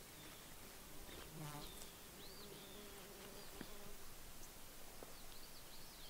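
A flying insect buzzing close by: a steady low hum that comes in about a second and a half in and fades out a couple of seconds later.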